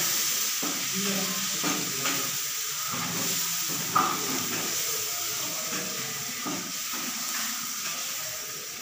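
Chicken pieces sizzling as they fry in masala in a wok on a gas burner, with a wooden spatula stirring and scraping against the pan, and a sharper knock about four seconds in.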